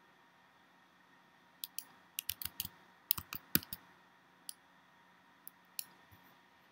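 Computer mouse and keyboard clicks: a quick run of about ten clicks in the middle, then a few scattered single clicks.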